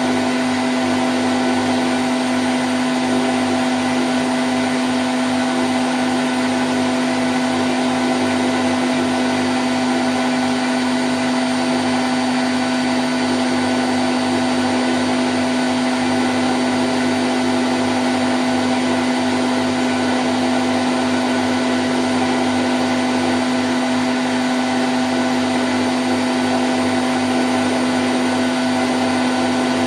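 Candy Grand O' F106 washing machine in its spin cycle at 1000 rpm: a steady, unchanging whirring hum with one strong low tone over a broad wash of noise.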